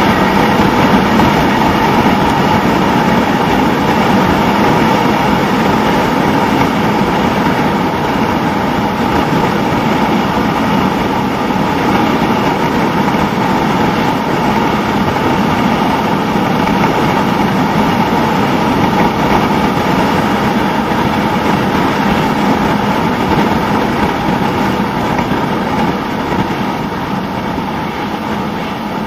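Suzuki SV650 motorcycle ridden at steady road speed: a constant rush of wind over the on-bike camera's microphone mixed with the 645 cc V-twin engine running, easing off a little near the end.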